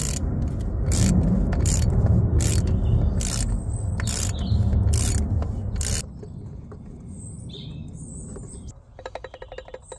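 Socket ratchet on a long extension undoing the oil filter housing cap, clicking on each back-stroke about every 0.8 s over a steady low rumble for the first six seconds. After a few quieter seconds with birds chirping, a fast even run of clicks comes in near the end.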